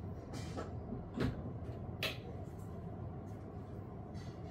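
A camera battery charger being plugged into a wall socket: a soft rustle, a thump about a second in and a sharp click about two seconds in, over steady low background noise.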